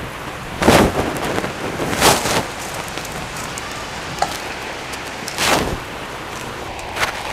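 Wood fire in a clay stove giving a steady hiss. About four short rustling scrapes are heard as a wooden stick rakes through the embers and ash.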